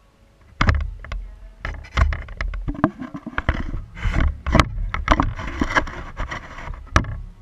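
Close, muffled knocks, clicks and scraping against a GoPro camera's housing, an irregular clatter that starts under a second in and stops abruptly near the end.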